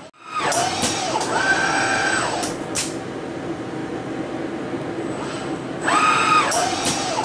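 KUKA KR 6-2 industrial robot arm's servo drives whining as the arm swings through a dart throw. The pitch rises as the arm speeds up and falls as it slows, twice: near the start and again about six seconds in. A few sharp clicks come in the first three seconds, over a steady hum.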